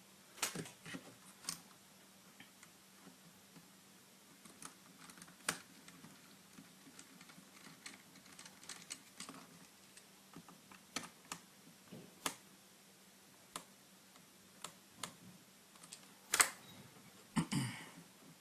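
Small, irregular clicks and taps of a mini screwdriver and tiny screws against a netbook's plastic screen frame and lid as the frame is screwed back on. A sharper knock comes near the end, followed by a brief scraping sound.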